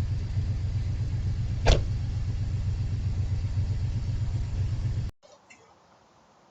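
Steady low engine rumble like a vehicle idling, with one sharp click just under two seconds in; it cuts off suddenly about five seconds in, leaving near silence.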